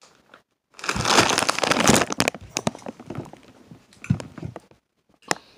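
Crinkling of a bag of Takis chips being handled and passed over, loudest in the first couple of seconds, followed by scattered crackles and clicks and a soft knock about four seconds in.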